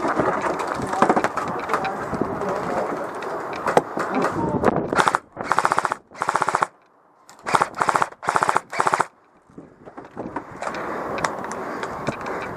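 Airsoft electric rifle firing six short full-auto bursts, each a fast rattle of shots, between about four and nine seconds in. A continuous rough noise fills the stretches before and after the bursts.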